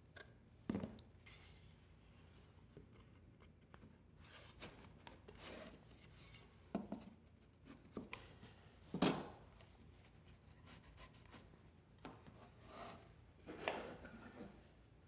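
Glued wooden stool parts handled and fitted together on a workbench: a few scattered knocks and rubs of wood on wood, the loudest about nine seconds in.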